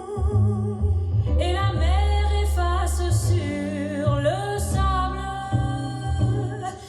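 A song with sung vocals over deep, sustained bass notes, played back through Buchardt Anniversary 10 (A10) loudspeakers and heard in the room.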